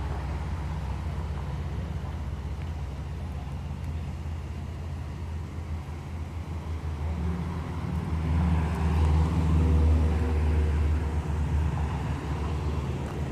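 Car engine idling steadily with a low hum, swelling louder about eight seconds in and then easing back.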